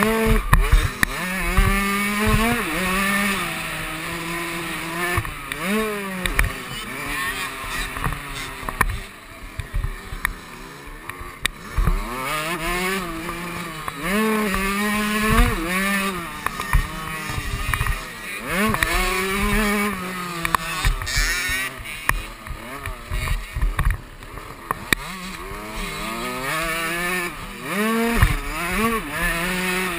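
KTM 65 two-stroke motocross engine revving hard and dropping off, over and over, as the rider works the throttle and gears; the pitch climbs and falls every second or two. Low knocks from the bike hitting bumps and landings run through it.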